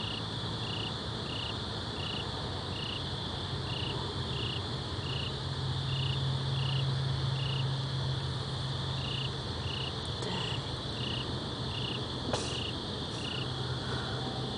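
Crickets chirping: short high chirps about twice a second over a continuous high insect trill, with a steady low hum underneath.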